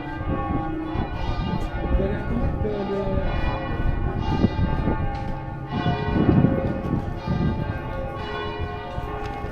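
Several church bells ringing together. They are struck again and again, and their long tones overlap and ring on.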